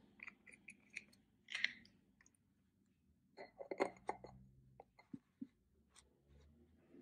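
Faint clicks and taps of small pots and nail tools being handled on a work table, with a short cluster of louder clicks about four seconds in.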